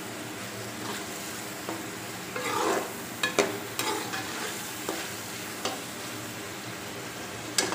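Boiled chickpeas frying with tomato and onion in oil in an aluminium kadai, a steady sizzle, while a slotted spoon stirs them, scraping and knocking against the pan. The clatter bunches up around the middle, with a single sharp knock near the end.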